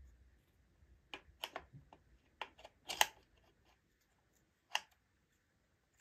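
Light plastic clicks and knocks, about eight over the first five seconds, the loudest about three seconds in, from the plastic fan and housing parts of a disassembled Babyliss hair dryer being handled.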